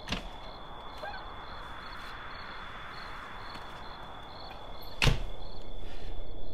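Steady insect chirping in night ambience, a high trill pulsing evenly, broken by two sharp hits, one right at the start and one about five seconds in, the second followed by a louder low rumble.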